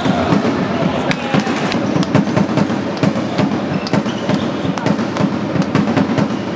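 Crowd noise in an indoor sports hall, with many sharp claps and bangs coming thick and fast throughout.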